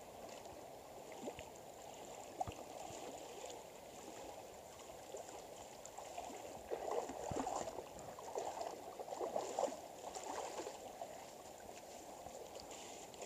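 River water sloshing and splashing around a person wading waist-deep across it, in irregular surges that grow heavier about halfway through.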